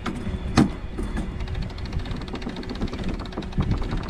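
Sailboat cockpit winch being worked: a sharp clack about half a second in, then a quick, even run of ratchet clicks as the sheet is trimmed, over steady wind and water noise.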